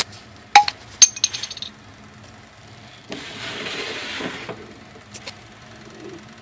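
A few sharp metallic clinks and a ringing tap, then a run of lighter clinks, from the metal parts of a vertical countertop rotisserie oven, over a steady low hum. Later comes a hiss lasting about a second and a half.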